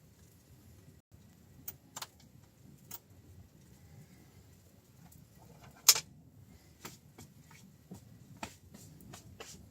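Wood fire crackling in a stove: scattered sharp pops and snaps, one much louder pop about six seconds in, over a faint low rumble.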